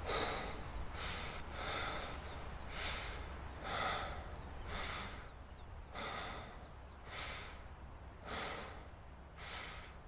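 A person breathing heavily in a steady rhythm, about one breath a second, the breaths growing fainter toward the end.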